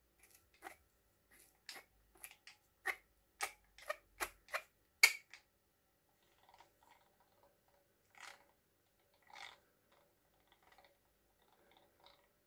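Old two-speed breast drill being cranked by hand: a run of short clicks and rasps from its gears and crank, about two a second, loudest around five seconds in, then a few fainter scrapes. The crank does not turn smoothly and stops along the way.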